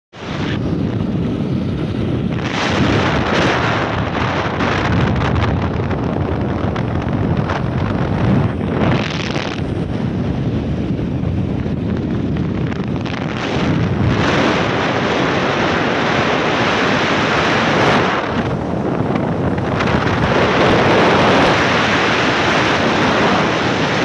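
Loud, steady wind noise rushing over the microphone of a moving bike. It swells and eases now and then and is strongest near the end.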